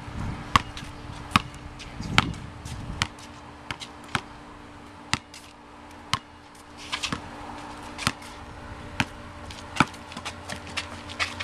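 A basketball being dribbled on a concrete court: sharp bounces at a steady pace of about one a second.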